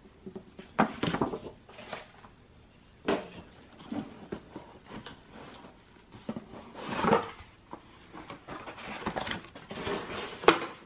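A large white sheet being lifted out of a cardboard board-game box, with the contents inside shifting. The sound is irregular rustling and scraping, with a few sharp knocks of the sheet and contents against the box about a second in, about three seconds in and near the end.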